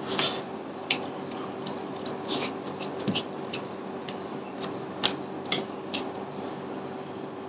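Eating sounds from rice and snail curry eaten by hand: irregular short wet clicks, smacks and rubbing. A steady low hum runs underneath.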